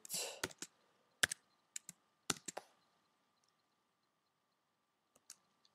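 Keystrokes on a computer keyboard: a handful of separate key clicks in the first two and a half seconds, then a pause and a few faint taps near the end.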